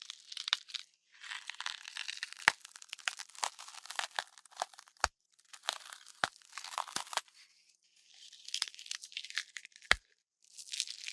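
Designed horror gore sound effect: wet flesh tearing and crackling in bursts, with sharp bone cracks about every two to three seconds, the loudest near the end.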